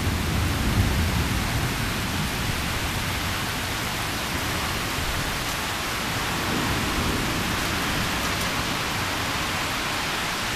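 Heavy rain falling steadily in a thunderstorm, a dense even hiss, with a low rumble of thunder dying away in the first couple of seconds.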